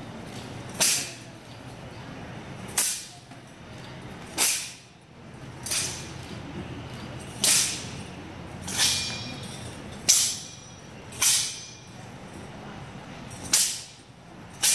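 Straight sword (jian) swishing through the air in quick thrusts and cuts: about ten sharp swishes, a second or two apart, over a low hall murmur.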